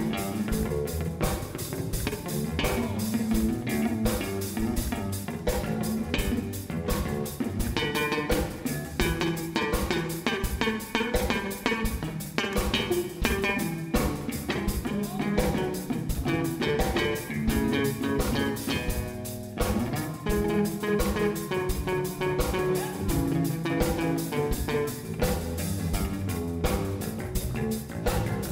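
Live blues-rock band playing: electric guitar over bass and a drum kit keeping a steady beat.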